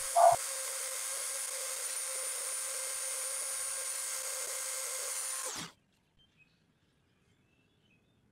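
Dremel rotary tool running with a steady high whine as its bit engraves letters into the wooden lure body. It stops abruptly about five and a half seconds in, leaving near silence.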